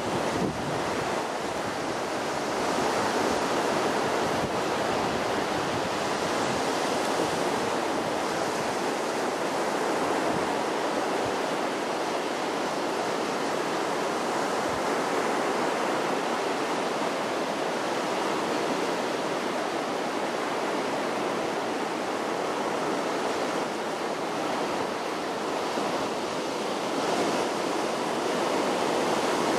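Sea surf washing steadily on the shore, an even, unbroken hiss.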